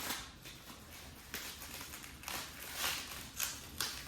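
Rustling and scraping handling noises as tires mounted on rims are unpacked: a run of short strokes, the louder ones in the second half.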